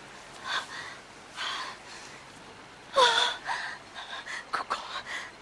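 A woman's breathy gasps, then a short, slightly falling cry about three seconds in, followed by several quick, sharp breaths.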